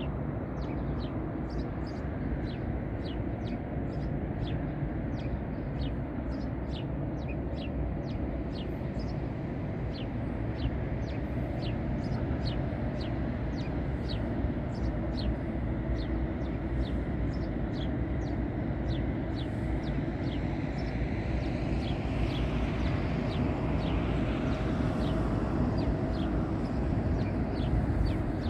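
Steady rumble of road traffic, with a small bird chirping over it again and again, about one and a half chirps a second. A broader swell of traffic noise builds from about twenty seconds in and fades a few seconds later.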